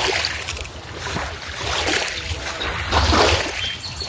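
Wind buffeting the microphone in gusts: a low rumble and rushing noise that swells and fades every second or so.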